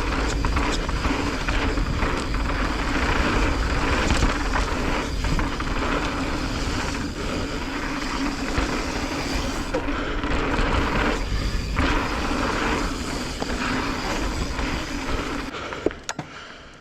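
Mountain bike riding fast down a dirt trail: wind rushing over the microphone, tyres rolling and the bike rattling over bumps, with a steady hum underneath. The noise dies down near the end as the bike slows.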